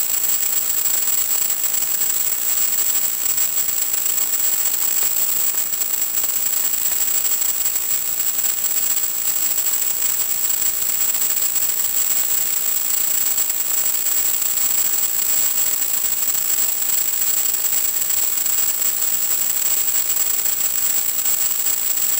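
Steady static hiss from the analog FPV video link's audio, with a thin, high, unchanging whine over it; no motor sound comes through.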